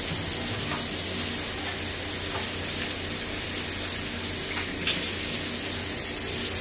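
A steady hiss with a low hum under it, and a few faint crinkles of aluminium foil as ears of corn are wrapped in it.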